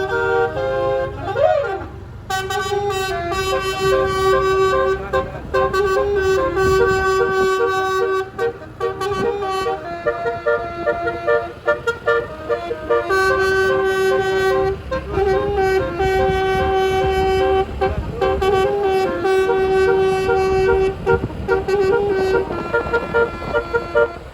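Twelve-note telolet air horn, a set of top-mounted trumpets, playing a tune of held and short blasts that step from note to note, with a brief pitch swoop about a second and a half in.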